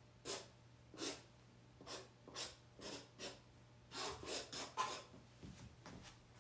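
Paintbrush flicked in quick strokes across textured watercolour paper: about ten short, faint, scratchy swishes, with a quicker run of four or five about four seconds in.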